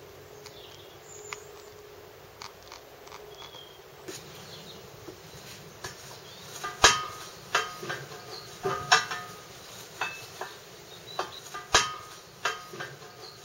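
Sharp metallic clinks and knocks, a dozen or so at uneven intervals starting about halfway through, each with a short ring: parts of a red apple press being handled and set up. Before them, faint outdoor background with a few small bird-like chirps.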